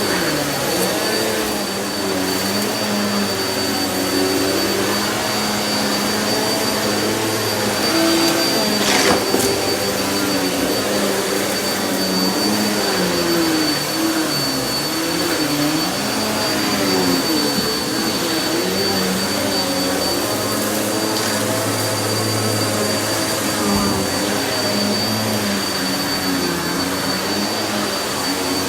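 Vacuum cleaner running continuously, with a steady high whine over its drone and the pitch wavering up and down as it works. One sharp click about nine seconds in.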